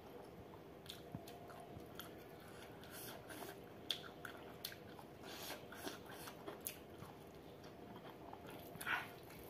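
Close-up chewing of a mouthful of rice and pork curry, with small wet clicks and smacks scattered through and a louder one near the end.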